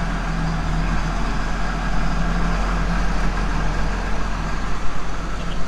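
Vehicle engine running steadily at a constant speed, a low, even hum with no revving.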